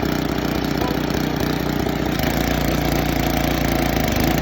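The 9 horsepower engine of an Echo Bearcat wood chipper running steadily after a one-pull start. Its tone shifts slightly about halfway through.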